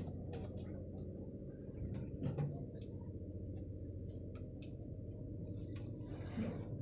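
A boat's engine humming steadily and low, with scattered light ticks and clicks, a louder knock about two seconds in and a brief rush of noise near the end.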